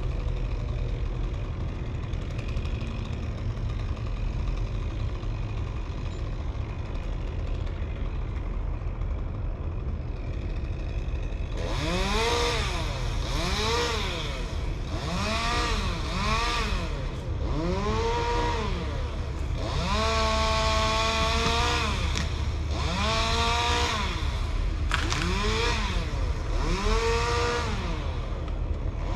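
Chainsaw engine revved in repeated bursts, each rise and fall in pitch lasting about a second and a half to two seconds, starting about a dozen seconds in. Before that there is only a steady low engine rumble.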